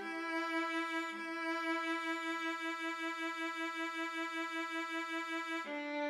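MuseScore's computer-generated playback of the alto part of an SATB a cappella arrangement, with no live singing. It holds long sustained notes, takes a fresh attack about a second in, and moves to a lower note near the end, with a fainter lower voice part underneath early on.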